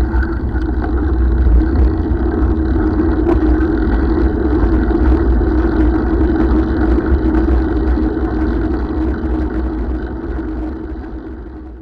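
Touring bicycle rolling along a gravel path: steady low tyre rumble with frequent small rattling clicks from the bike, fading out near the end.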